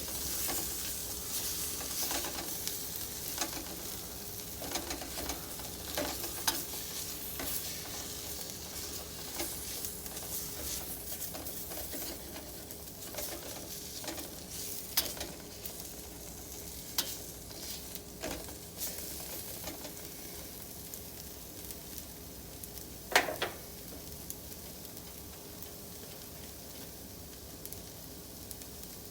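Onions sizzling in a pot as they caramelize, with scattered clicks and knocks of a utensil stirring them; one sharper knock about 23 seconds in.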